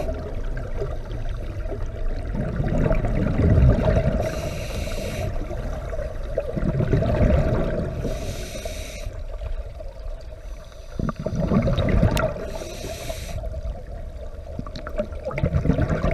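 Scuba diver breathing through a regulator underwater: a short hiss on each inhale, about every four seconds, with a low bubbling rumble of exhaled bubbles between.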